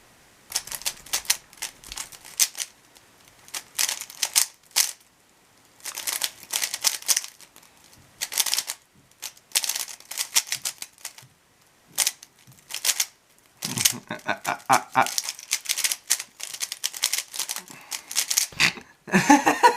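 Speedcube (Rubik's cube) being turned fast during a timed solve: quick runs of plastic layer-turn clicks with short pauses between them.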